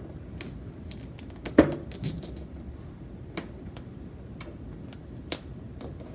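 Handling noise from plastic parts being worked by hand: scattered light clicks and taps over a low room hum, the loudest tap about one and a half seconds in.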